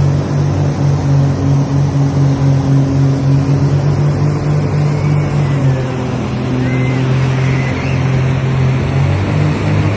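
Motorboat engine running at a steady speed under a rush of wind and water. A couple of faint high rising-and-falling sounds come through around the middle.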